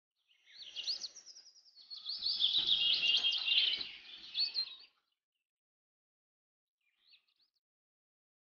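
Birds chirping in quick high chirps for about four and a half seconds, then one more short chirp near the end.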